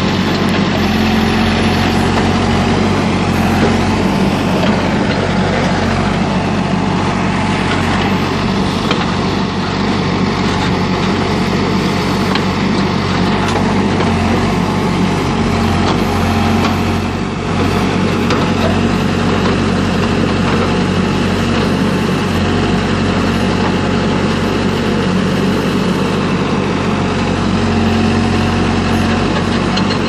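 Hidromek backhoe loader's diesel engine running steadily under load as the rear backhoe bucket digs and trims soil along a trench wall, briefly easing off a little past halfway.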